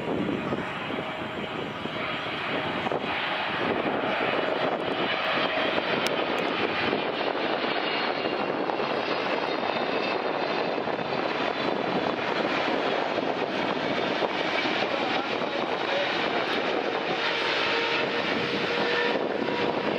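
Boeing 777 twin-jet on landing approach with gear down: a steady jet-engine rumble with a faint whine on top. It grows louder over the first few seconds as the airliner closes in, then holds steady.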